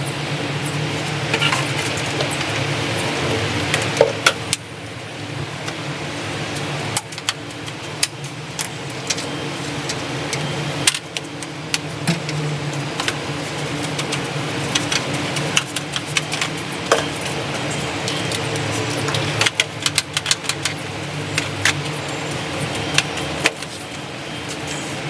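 Clicks, knocks and light rattles of a long-handled cleaning tool worked over a balcony floor, scattered irregularly, over a steady low hum.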